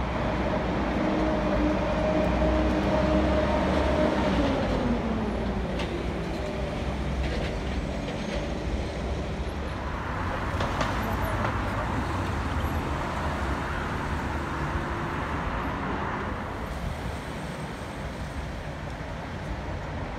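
A vehicle running with a low rumble and a steady motor whine that drops in pitch about four to five seconds in as it slows, followed by a steadier mix of rumble and noise.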